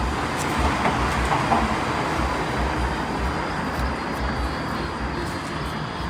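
Steady background noise with an irregular low rumble, like distant street traffic, with a few faint clicks in the first second or two.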